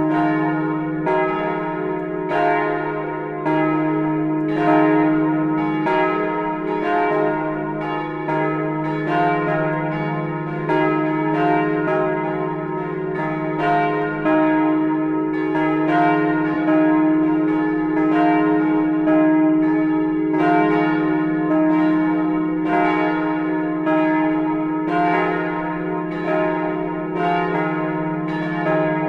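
Several of the Speyer Gedächtniskirche's large church bells swinging together in a partial peal. Their strokes overlap irregularly at about one or two a second, each leaving a long ring over a steady low hum from the bells.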